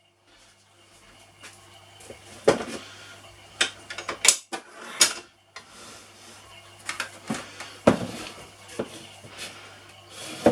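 Kitchen bowl and utensils being handled: a string of separate knocks, clunks and scrapes, some sharp, over a faint steady low hum.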